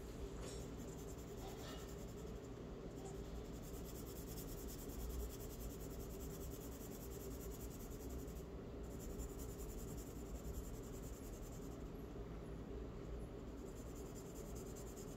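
Charcoal pencil rubbing and scratching on paper in repeated drawing strokes, faint, over a steady low hum.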